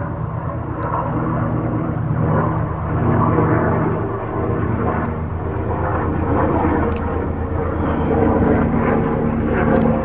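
AgustaWestland AW109 twin-turbine helicopter running close by: a loud, steady rotor-and-engine drone made of several low tones that shift slightly in pitch now and then.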